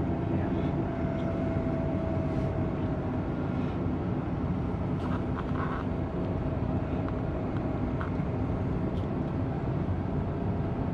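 Steady engine and tyre noise heard inside a moving car's cabin, with a faint steady whine and a few light clicks.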